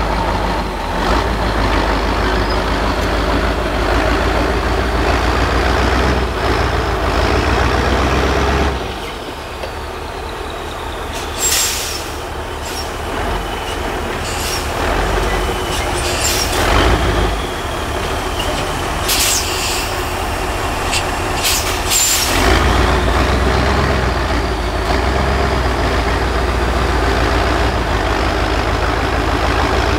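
Mercedes-Benz off-road trial truck's diesel engine working hard under load as the truck climbs a steep mud slope. The engine eases off about nine seconds in, and several short hisses of air come from the air brakes. It pulls strongly again from about two-thirds of the way through.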